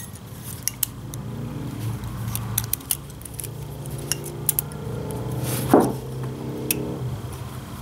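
Small metal parts of a Ford 2N front-mount distributor clicking and clinking as they are handled and fitted by hand: a scattered series of sharp, light ticks.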